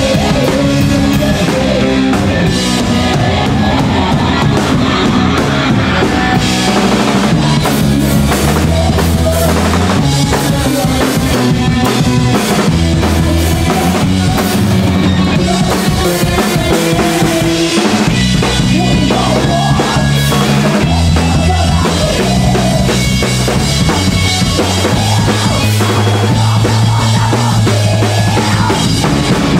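A rock trio playing a song live: a Fender electric guitar, an electric bass and a drum kit, loud and steady throughout.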